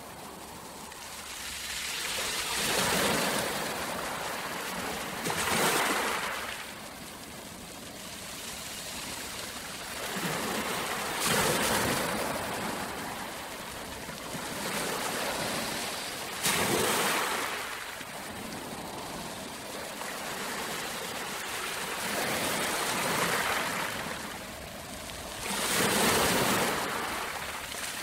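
Small sea waves washing up onto a sandy shore, a hiss of surf that swells and draws back every few seconds.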